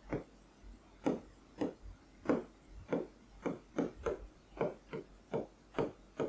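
Pen strokes on an interactive display board: a quick series of short scratching and tapping strokes, two to three a second, as handwriting is drawn on the screen's surface.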